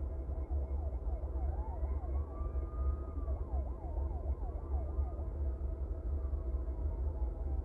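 Faint emergency-vehicle siren switching between a fast yelp and a slow rising-and-falling wail, the yelp stopping about five seconds in. It sounds over a steady low rumble.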